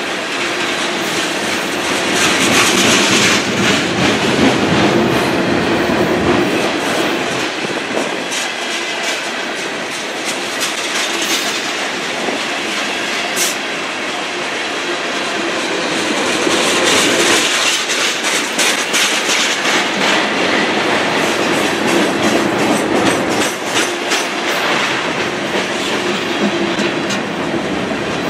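Freight cars (tank cars and covered hoppers) rolling past close by: a steady loud rolling noise with wheels clicking over the rail joints, swelling louder twice as cars go by.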